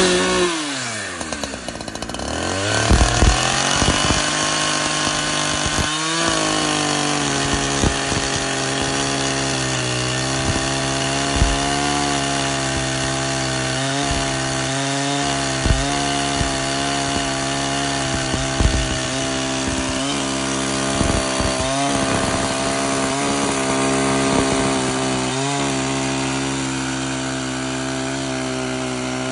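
ZimAni 365 two-stroke chainsaw fitted with a full-chisel chain. Its engine pitch falls over the first couple of seconds, then it runs at steady high speed through a long cut in a thick log, the tone wavering slightly as the chain bites.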